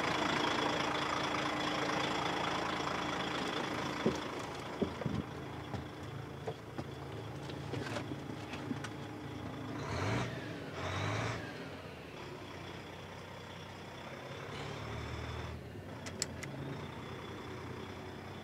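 DAF XF105 truck's 12.9-litre six-cylinder diesel idling steadily, loudest at first and then heard more faintly from inside the cab. A few sharp knocks come about four to five seconds in, two short bursts of noise about ten seconds in, and a brief high beep later.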